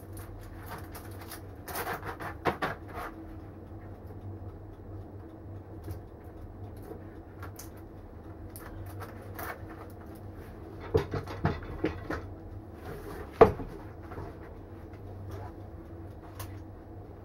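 Clanks and knocks of metal on metal as a screw-clamp tyre vulcanizing press is undone and the freshly cured turf tyre is freed from it: a few knocks early, a cluster about eleven seconds in, and the loudest single knock a little later, over a steady low hum.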